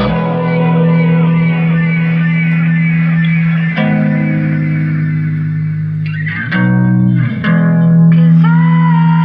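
Guitar music: long held chords over a steady low bass note, changing chord a few times.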